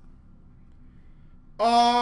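Quiet room tone with a faint low hum, then a man starts speaking near the end.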